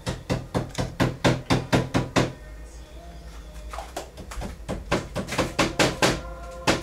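Rapid, even knocking, about five sharp strikes a second, in two runs with a pause of about a second and a half in the middle.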